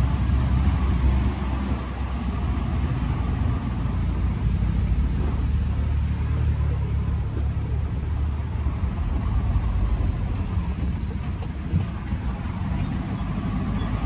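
A car's engine and tyre noise as a steady low rumble, heard from inside the moving car.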